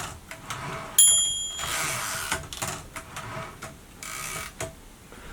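Erika M portable typewriter: the carriage bell dings once about a second in, followed by the carriage sliding and ratcheting for a couple of seconds, then a few lighter mechanical clicks from the carriage levers.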